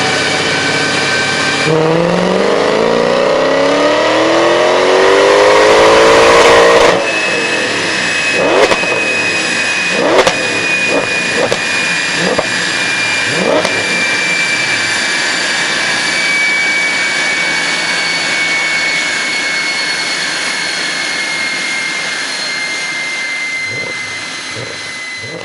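Mercedes CLK63 AMG's V8 on a chassis dyno making a full-throttle pull: the engine note climbs steadily in pitch and gets louder for about five seconds, then cuts off abruptly as the throttle closes. A handful of sharp exhaust pops follow on the overrun, over a high whine that slowly falls in pitch and fades.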